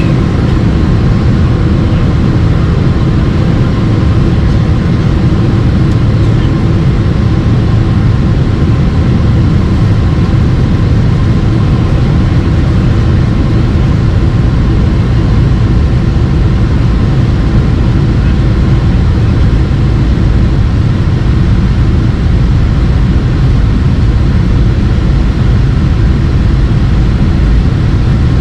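Steady, loud, low drone of a vehicle in motion, with a few faint steady tones in it and no change throughout.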